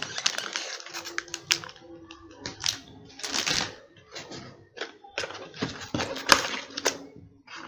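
Packaging handled by hand: a motherboard's anti-static bag crinkling as it is lifted from its cardboard box, then the box's flaps and cardboard insert knocking and scraping. It comes as irregular sharp clicks and short rustles.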